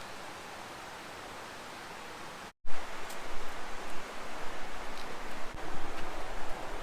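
A steady rush like a creek, then after an abrupt cut about two and a half seconds in, louder uneven rustling with wind rumbling on the microphone and a few light ticks, typical of a hiker walking along a trail.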